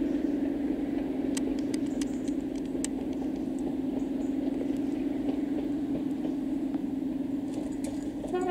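Class 37 diesel locomotive's English Electric V12 engine working steadily as it hauls the train away, a low, evenly pulsing drone; a brief higher tone starts near the end.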